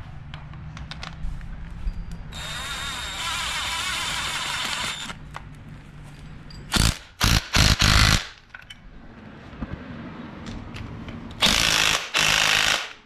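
Cordless power tool driving in the 14 mm starter mounting bolts on a Honda D16 engine and transmission. A steady run of about three seconds comes first, then a few short loud bursts, and another loud burst of about a second and a half near the end as the bolts are run down tight.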